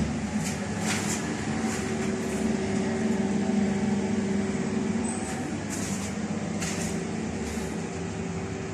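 Electric hot-air blower running with a steady hum, used to dry a freshly patched ceiling, with a few light clicks over it.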